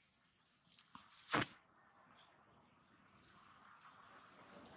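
Steady high-pitched chorus of insects, with a short thump a little over a second in.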